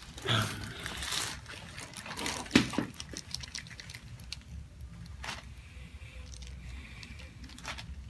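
Soft rustling of clothing and table paper as hands settle a lying patient's head for a chiropractic neck adjustment, with one sharp knock about two and a half seconds in and a few faint clicks later.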